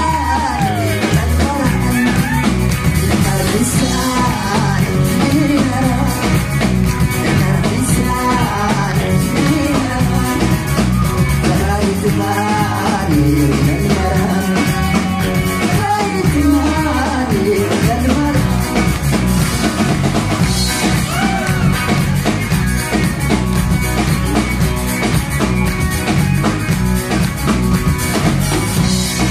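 Live band performing Tuareg desert-blues rock: a male voice singing over electric guitars and a drum kit, with a steady driving beat.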